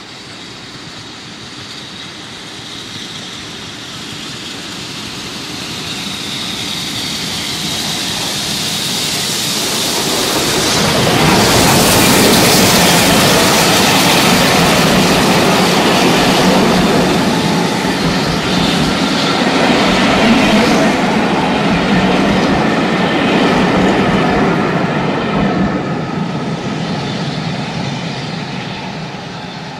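Steam-hauled passenger train approaching and passing close by. It grows steadily louder over the first ten seconds, the coaches' wheels run past on the rails at full loudness, and the sound fades away near the end.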